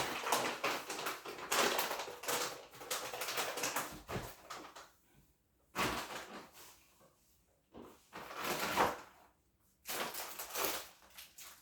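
Kitchen utensils and containers being handled: irregular scraping and rustling with light knocks and clicks, in several spells broken by short pauses.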